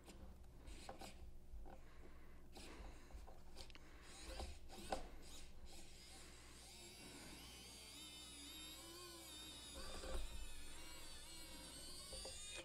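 A Fanttik NEX E1 Pro mini electric precision screwdriver working a screw in a plastic winch housing. Light clicks and handling noise come first, then from about halfway a faint, wavering motor whine.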